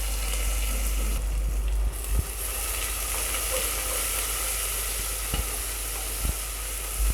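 Sliced onions sizzling in hot oil and spices in a pressure cooker, a steady hiss, with a few short knocks from stirring.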